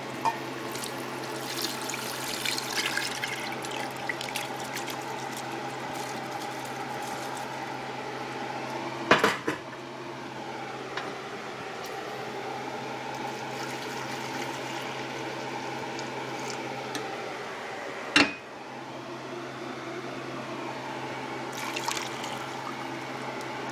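Soaked sweet rice poured from a bowl into a steel pot of simmering chicken broth, with liquid sloshing and splashing. A steady hum runs underneath, and two sharp knocks against the pot come about 9 and 18 seconds in.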